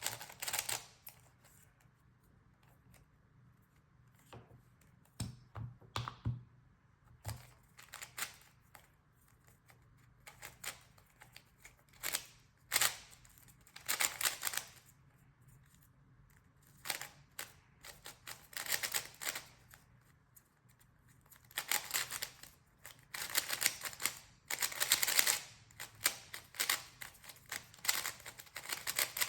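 GAN 356 ME speed cube being turned fast during a timed solve: bursts of rapid plastic clicking and clacking from the layers, broken by short pauses.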